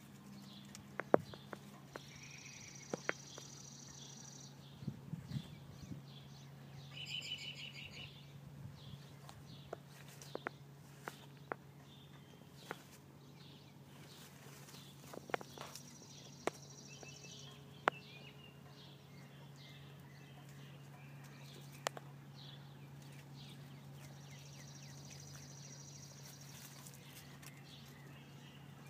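Songbirds chirping now and then over a steady low hum, with scattered sharp clicks and rustles from close by.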